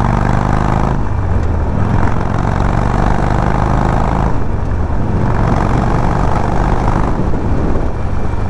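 Harley-Davidson Sportster 1200 Forty-Eight's air-cooled 1200 cc V-twin running under way, its note rising as it accelerates, with wind noise. The engine note changes about a second in, brightens around four seconds in and drops back near seven seconds.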